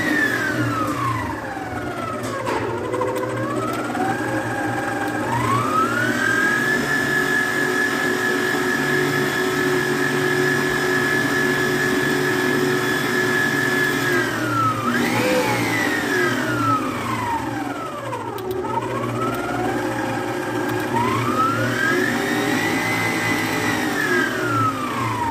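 Stand mixer motor whirring as its wire whisk beats egg whites and sugar into stiff-peak meringue. The whine's pitch drops and climbs several times, holding steady for several seconds in the middle.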